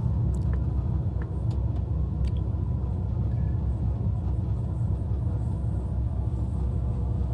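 Steady low rumble of a moving passenger train heard from on board, with a few faint clicks in the first couple of seconds.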